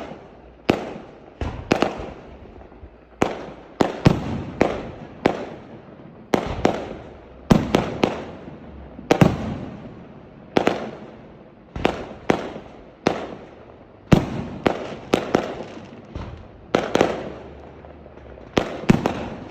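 Aerial fireworks going off in a rapid, irregular series of sharp bangs, one or two a second, each trailing off in an echoing rumble.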